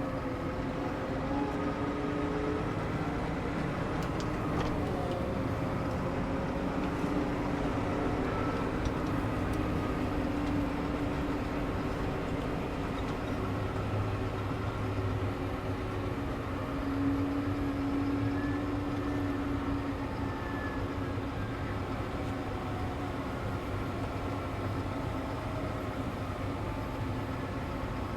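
New Holland T7.315 tractor's six-cylinder diesel running steadily as it drives along towing a grain trailer, a steady drone whose pitch drifts slightly up and down.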